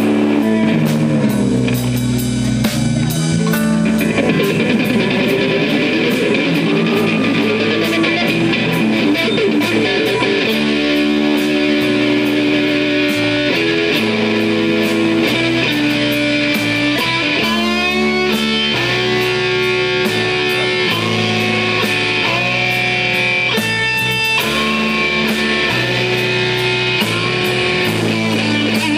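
Live rock band playing an instrumental passage: electric guitar holding long notes that step from pitch to pitch, with a couple of quick sliding runs, over bass guitar and drum kit.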